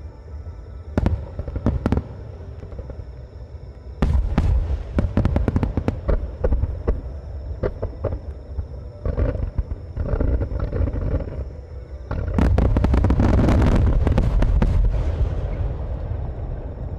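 Aerial fireworks shells bursting in a rapid-fire star mine barrage. A few single booms come first, then a dense volley starts about four seconds in, with crackling after it. Near the end the loudest, continuous run of bursts rumbles and then slowly fades.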